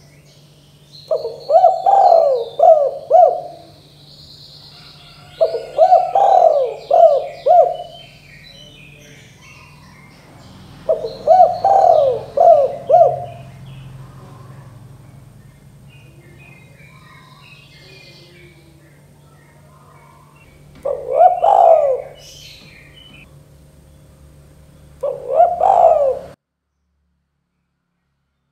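Spotted dove (tekukur) cooing: five phrases of several quick coos each, the first three longer and the last two shorter, with small birds chirping faintly behind. The sound cuts out completely near the end.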